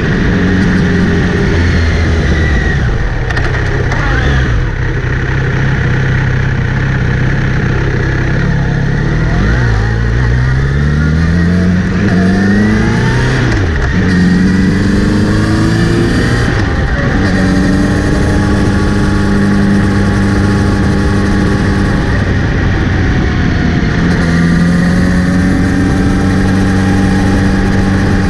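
Kawasaki Z900RS inline-four engine running in gear, climbing in pitch twice between about 10 and 16 seconds in and dropping back sharply each time, otherwise holding steady. Along with it comes the whirring the owner hears when accelerating or in gear, which seems to come from the front sprocket area since the chain was cleaned and relubed, even though the chain is clean and correctly tensioned.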